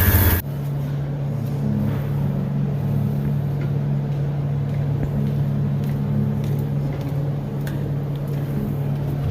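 Refrigerant recovery machine running steadily: a low, even motor hum with a few faint clicks, pulling refrigerant out of the system.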